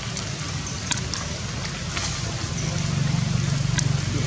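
Rain falling on forest leaves, a steady hiss with scattered sharp drips. Under it runs a steady low hum that grows louder in the second half.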